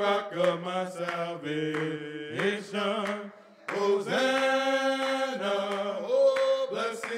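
Men's voices singing a gospel worship song together in harmony, moving from note to note and holding a long chord from about four seconds in.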